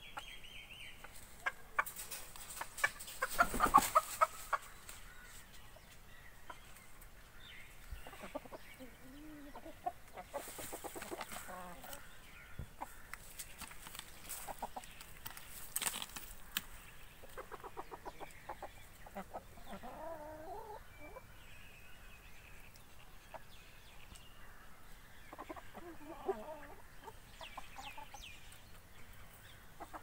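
Pakistani Aseel chickens clucking at scattered intervals, with a louder noisy burst about three seconds in.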